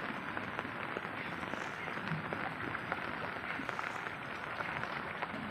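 Steady rain falling on shallow floodwater, a dense spread of small drop ticks.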